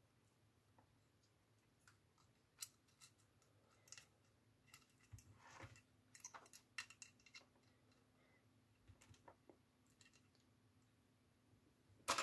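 Faint, scattered clicks and taps of small plastic parts being handled while the track is fitted onto an RC model dozer, with a louder brief clatter near the end.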